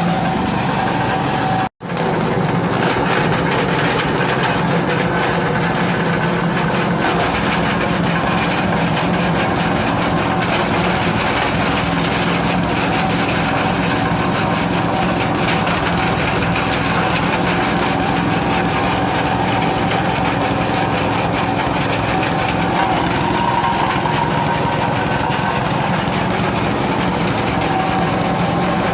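Coconut husk grinding machine (cocopeat/cocofiber mill) running steadily with a constant engine-like hum, cut off for a split second a little under two seconds in.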